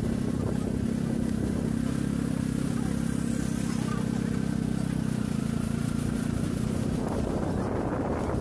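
A motor engine running steadily, a low hum that fades out about seven seconds in and leaves wind noise on the microphone and street noise.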